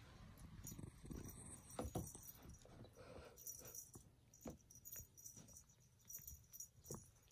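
Faint sounds of a cat playing with a fluffy rainbow teaser toy on a wooden floor: soft rustling with scattered light taps and clicks from paws and the toy.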